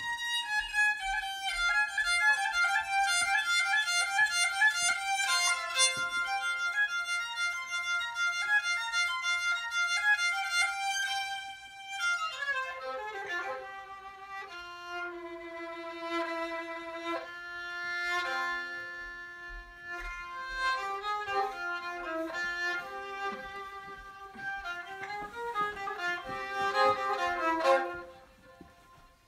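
Kamancheh, a Persian bowed spike fiddle, played solo: a quick melody in a high register for about twelve seconds, then slower, lower phrases with longer held notes, stopping briefly near the end.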